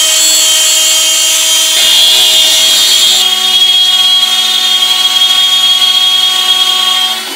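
Bosch Colt trim router spinning at speed as the CNC spindle, milling a bamboo board, with a steady high whine. About two seconds in the tone shifts with a brief rougher grinding, then the whine runs steady again until it drops in level near the end.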